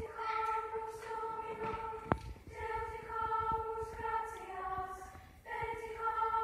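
Middle-school girls' choir singing long held notes in unison, in phrases that break off briefly about two and five seconds in. A single sharp knock sounds about two seconds in.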